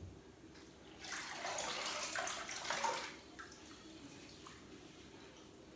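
Kitchen tap water running for about two seconds, then stopping.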